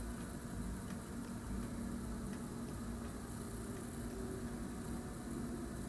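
Pot of water with noodles at the boil: a faint, steady noise with a low steady hum.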